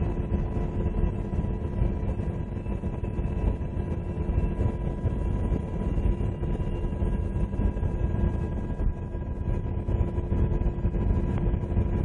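UH-60 Black Hawk helicopter flying, heard from inside the cabin: a steady heavy rotor and twin-turbine rumble with a constant high whine from the engines and gearbox.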